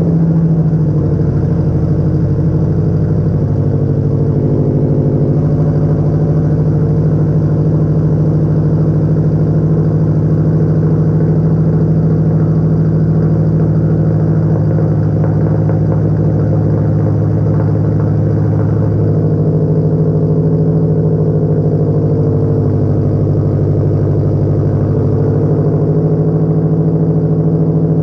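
Subaru WRX turbocharged flat-four idling steadily and loudly through a straight-piped 3-inch exhaust: cattless downpipe, no mufflers and no resonator.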